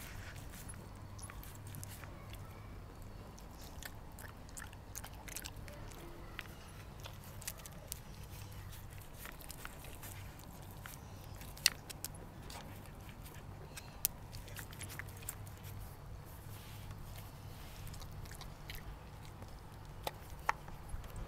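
A dog licking and chewing at treats in a Dog Turbo treat-puzzle board. Scattered sharp clicks and taps from the board come through: two loud ones about twelve and fourteen seconds in, and several more near the end.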